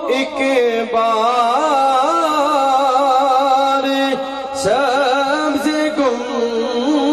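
A man's voice sings a naat (Urdu devotional praise poetry) in long, drawn-out notes that waver and bend in ornaments, stretching each word of the verse.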